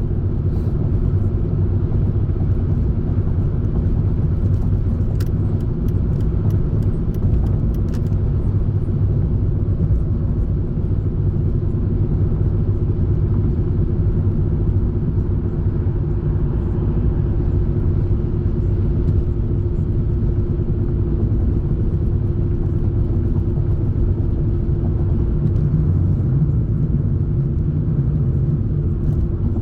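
Steady road and engine noise of a car being driven, a low rumble with a steady hum, and a few faint clicks about five to eight seconds in.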